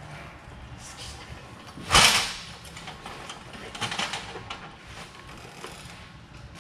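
Plastic bubble wrap rustling and crinkling as it is handled, with one brief loud burst about two seconds in and softer crinkles around four seconds.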